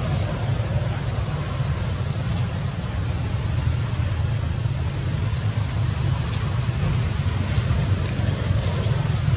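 Steady low rumble of outdoor background noise, with a few faint short ticks scattered through it.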